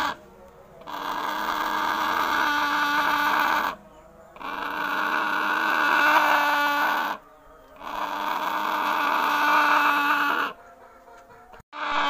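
Hornbill calling with its bill open: three long, loud calls of about three seconds each, separated by short pauses.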